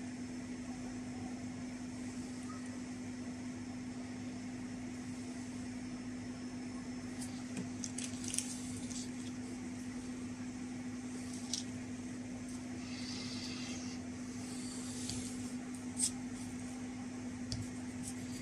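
A steady low hum under a few light clicks and short bursts of hissing about two-thirds of the way in: acid flux sizzling under a hot soldering iron on the stainless-steel end of an SBM-20 Geiger tube being tinned.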